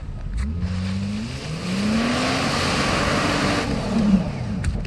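Mitsubishi Pajero's engine revving under load as its tyres spin in deep slushy snow, with a hiss from the wheels. The revs climb and hold, peak sharply about four seconds in, then fall away: the 4x4 is struggling for traction.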